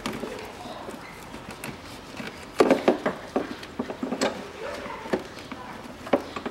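Metal clunks and scrapes as a car alternator is worked by hand into its mounting bracket in the engine bay of a 2001 Nissan X-Trail. A cluster of sharp knocks comes about two and a half to three and a half seconds in, with single knocks near four seconds and just before the end.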